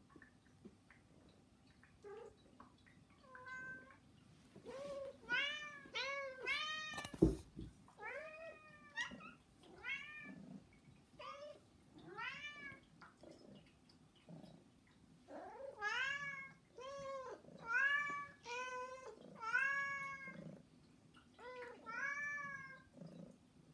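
Domestic cats meowing over and over, one call after another and sometimes overlapping, each meow rising then falling in pitch: demanding begging meows asking for food. A single thump about seven seconds in.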